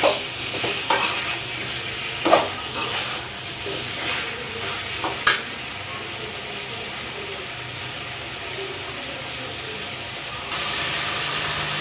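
Metal spatula knocking and scraping against an aluminium pot as chicken and potato curry is stirred while it fries, with a few sharp clinks in the first five seconds, the loudest about five seconds in. The curry then sizzles steadily, and a low hum comes in near the end.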